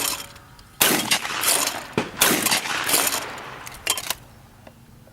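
Two shotgun shots at flying clay targets, about a second and a half apart, each trailing off in echo.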